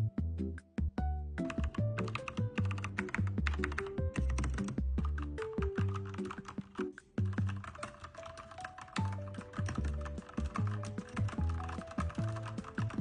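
Fast, continuous typing on a mechanical keyboard with a fresh keycap set, a dense run of key clicks starting about a second in. Background music with a repeating bass line plays throughout.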